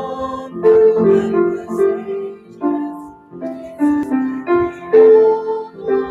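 Piano playing slow chords, each struck and left to fade before the next.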